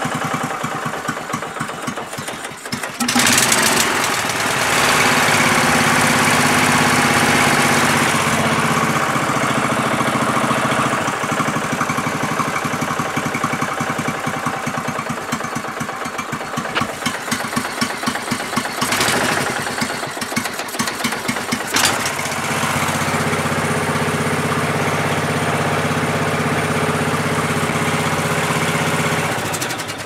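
Briggs & Stratton 17.5 hp lawn tractor engine running, speeding up about three seconds in and again past the twenty-second mark. It cuts out at the very end as the brake pedal is let back: a faulty brake safety switch is killing the engine.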